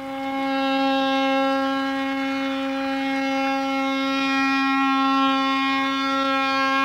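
Ship's horn sounding one long, steady blast at a single unchanging pitch.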